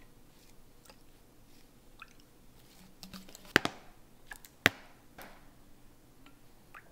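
Sauce liquids being measured into a small glass bowl: light taps of a metal measuring spoon and a thin pour of liquid, with two sharp clinks about a second apart a little past halfway.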